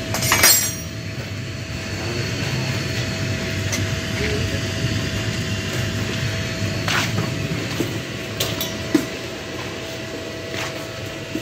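Homemade plastic-pelletizing machine running: its electric motor and belt drive give a steady hum with a constant whine. A loud clank about half a second in, and a few sharper knocks later.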